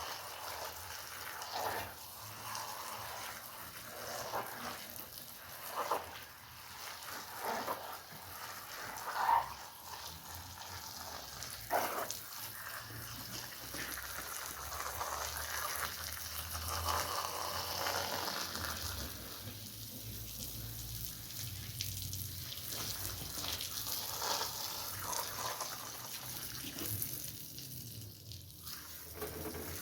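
Water and soapy foam on a wet rug being washed: separate sloshing strokes every second or two, giving way about halfway through to a steadier fizzing hiss of foam and running water.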